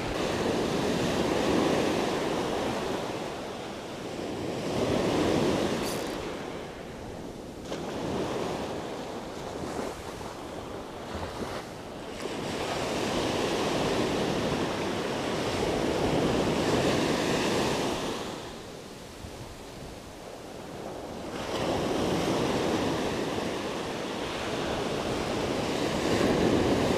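Surf breaking on a sandy beach: waves crash and wash up the sand, the rush swelling and fading again every few seconds.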